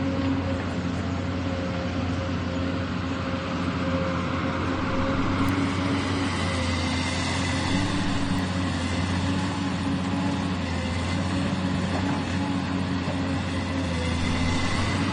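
Excavator engine running steadily with a constant pitched hum while the machine works.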